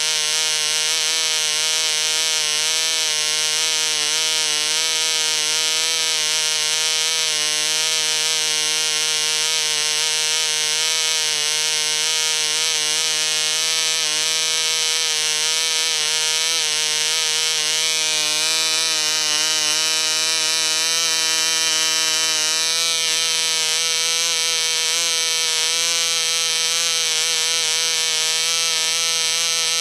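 P.A.W. 1.49 model diesel (compression-ignition) two-stroke engine running steadily at around 9,500 rpm, a high, buzzing note whose pitch wavers slightly.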